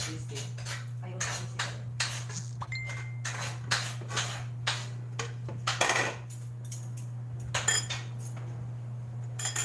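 Irregular clinks and clatter of cutlery against plates and dishes, with a brief ringing clink about three seconds in and a louder cluster of knocks around the middle, over a steady low hum.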